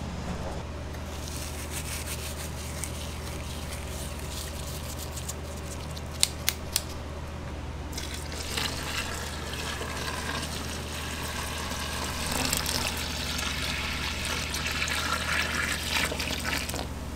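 Water pouring from a steel bowl onto flour in a stainless-steel dough mixer bowl, starting about halfway through and growing louder, over a steady low hum. A few sharp clicks shortly before the pour begins.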